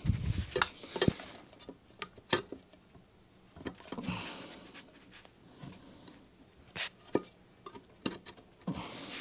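Scattered clicks, knocks and rubbing of plastic and metal parts as the red cutting cylinder of a Ransomes Ajax reel mower is worked by hand into its side frame, with a low thump right at the start.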